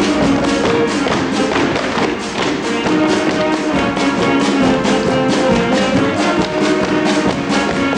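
Lively Mexican-style instrumental music with a fast, steady beat of about four strokes a second and no singing.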